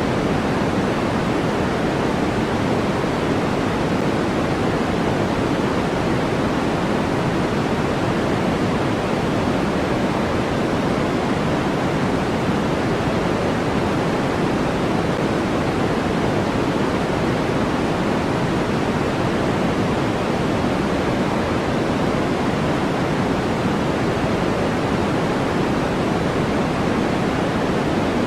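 Steady generated noise track sold as white noise: an even, unbroken hiss with no change in level, weighted toward the lows so that it sounds deeper and softer than a bright hiss.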